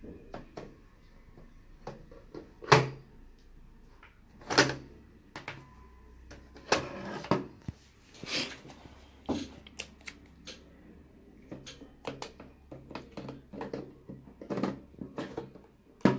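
Irregular plastic clicks, knocks and rattles of a Polaroid 500 instant camera and an SX-70 film pack being handled while loading the film, the loudest knock about three seconds in. A short scraping rustle comes around seven seconds in.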